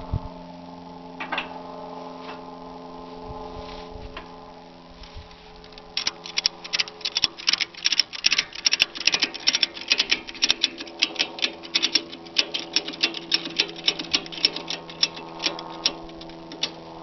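Ratchet tie-down strap being cranked tight: a long run of quick metal clicks from the ratchet, starting about six seconds in and lasting about nine seconds, over a steady low hum.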